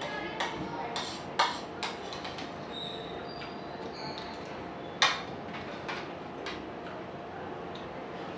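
A spoon clinking and scraping against a ceramic plate while scooping curry and rice: several sharp clinks in the first two seconds and a loud one about five seconds in, with softer eating sounds between.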